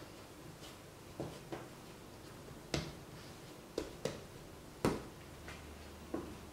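Hands shaping a small ball of bread dough on a floured bamboo cutting board: soft, irregular taps and knocks against the wood, about seven in all, two of them sharper. The last tap comes as the ball is set down near the end.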